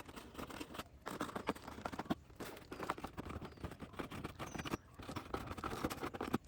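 Toy packaging being handled and opened: scratchy rustling of plastic and cardboard with many small clicks and taps, pausing briefly now and then.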